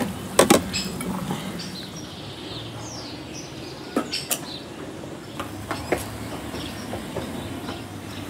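A few sharp knocks or clicks over a low steady background: a quick pair about half a second in, another pair about four seconds in, and a single one a little later.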